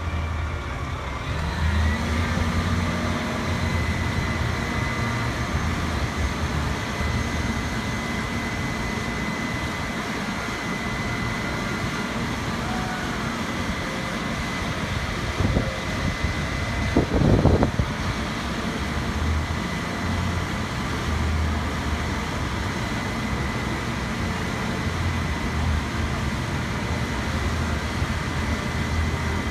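Diesel engine of a fire department aerial ladder truck running steadily, its hum rising in pitch about a second and a half in and then holding, with a steady high whine above it. A brief louder noise breaks in a little past halfway.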